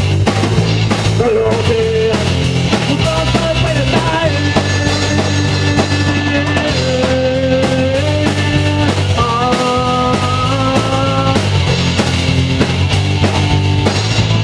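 Live rock band playing an instrumental passage: electric guitar holding long lead notes that step in pitch over a steady bass and drum groove.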